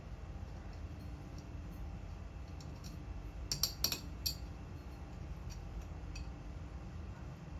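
Light metallic clinks of tools and metal parts being handled, with a quick cluster of about four clinks about halfway through, over a steady low rumble.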